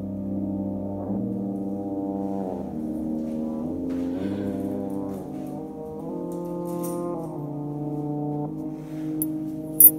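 Slow background music of held, sustained chords that change every second or two. A short sharp click comes near the end.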